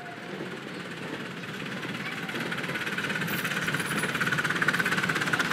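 Miniature steam locomotive, BR Britannia Class '70000 Britannia' in 7¼-inch gauge, working a loaded passenger train with rapid, even exhaust beats that grow louder as it approaches.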